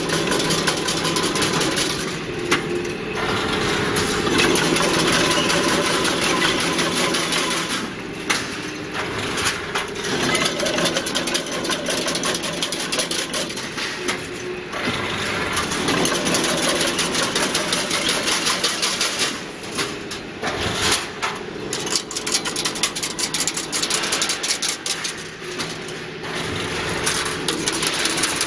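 Single-wire chain link fence machine running, a fast metallic clatter over a steady machine noise, dipping briefly every few seconds.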